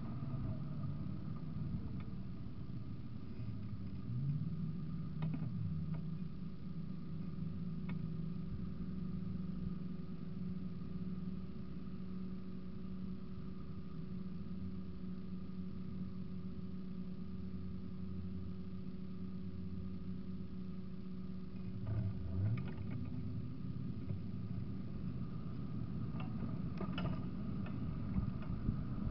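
A car's engine and road noise heard from inside the cabin, steady, with the engine pitch rising briefly about four seconds in and again around twenty-two seconds in.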